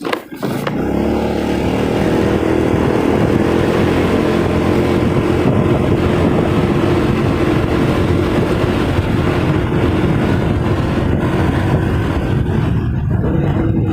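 Motorcycle engine running at a steady cruising speed, with wind rushing over the helmet-mounted phone microphone; the sound drops out briefly at the very start, then holds steady.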